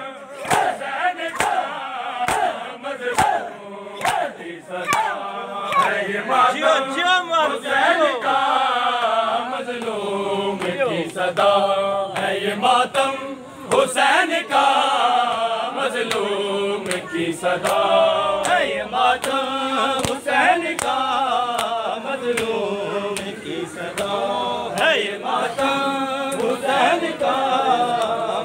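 A group of men chanting a Muharram noha in unison, with regular sharp slaps of hands striking chests in matam keeping the beat under the singing.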